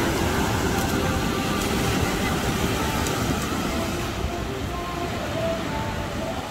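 Small ocean waves breaking and washing up the sandy beach, with wind noise on the microphone.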